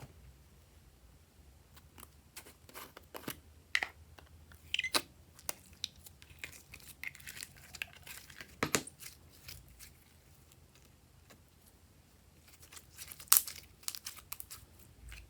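Slime being worked by hand, giving irregular crackling pops and clicks in two busy stretches, with one louder pop near the end.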